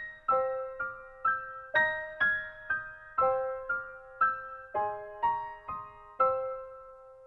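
Background music: a gentle piano melody of single notes, about two a second, each ringing and fading, with a longer pause near the end.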